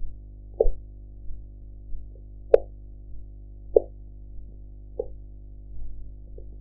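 Korotkoff sounds heard through a stethoscope during a blood pressure reading: short, low tapping thumps about once every second and a bit, the loudest about two and a half seconds in with a sharp click, over a steady low hum.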